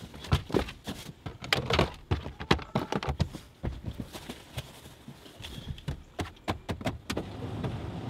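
Irregular knocks, thumps and rustling of someone rummaging through a car's cabin, handling the seats, door and compartments while searching it. The knocking stops about seven seconds in, leaving a steady outdoor hiss.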